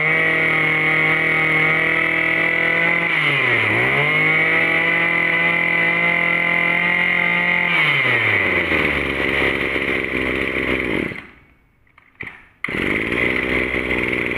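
A 26cc two-stroke brush cutter engine revved hard on the throttle, with one quick dip and recovery in pitch about four seconds in. It drops back to idle near eight seconds and stops around eleven seconds, then is running again near the end.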